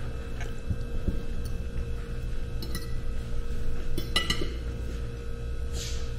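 Metal fork clinking and scraping against a dinner plate a few times while eating, the loudest clink ringing briefly about four seconds in.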